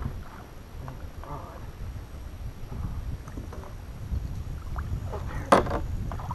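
Wind rumbling on the microphone aboard a kayak, with a few soft knocks and one sharp knock about five and a half seconds in.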